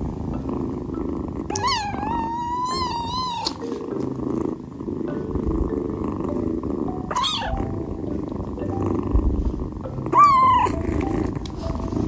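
Kitten purring steadily and close up, with three high-pitched kitten mews over it: one long, drawn-out mew starting about a second and a half in, then two short ones near the middle and about ten seconds in.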